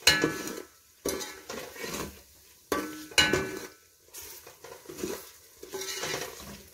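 A spoon stirring spiced masala in a cooking pot, scraping and knocking against the pot with a handful of sharp, ringing clinks at uneven intervals.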